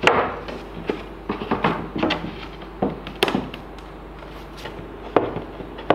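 Wooden drawer panels knocking and clattering on a wooden workbench as they are handled and stood together into a drawer box: a string of sharp knocks, the loudest about three seconds in and about five seconds in.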